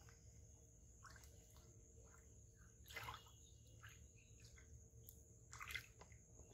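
Faint small splashes and drips of water where a fishing line enters a pond, the surface stirring around the line, with two slightly louder splashes about three seconds in and near the end.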